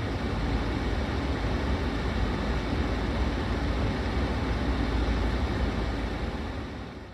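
Suzuki Jimny driving: a steady low rumble of engine and road noise, fading out near the end.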